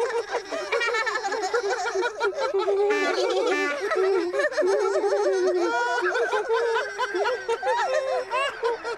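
Several high-pitched Teletubby voices giggling and chuckling together, overlapping.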